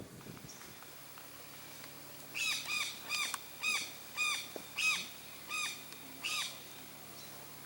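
A bird calling a run of about nine short, arched notes at an even pace, each rising and falling in pitch.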